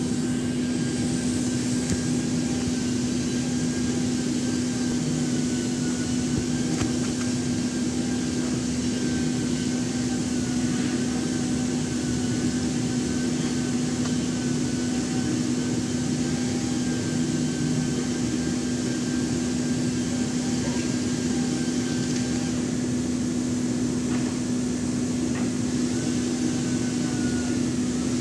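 Handheld electric circular saw running steadily with a constant hum while cutting a wooden door jamb. Its pitch dips slightly now and then.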